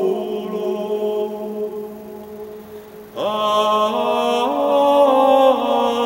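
A man's solo voice singing unaccompanied Ambrosian chant, a sallenda. A long held note fades away over the first three seconds. Just after three seconds a louder new melismatic phrase begins, its pitch stepping upward.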